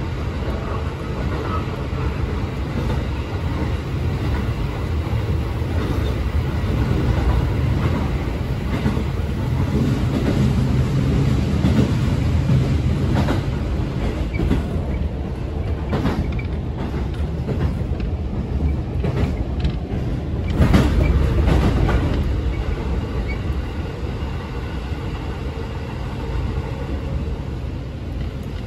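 Electric local train running on the rails, heard from inside the passenger car: a steady rumble of the wheels with scattered clacks over the rail joints.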